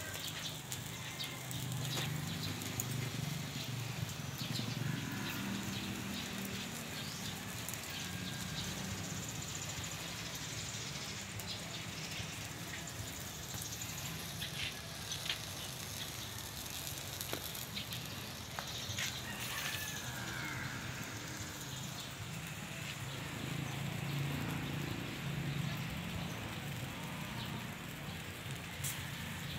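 Charcoal fire under a spit-roasted whole pig crackling, with scattered small pops and clicks over a steady low background hum.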